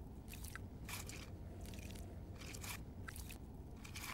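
Metal spoon scooping coarse brown sugar from a steel bowl and tipping it into a steel mug of coffee: several short, gritty, crunching scrapes, with a few faint metallic tinks.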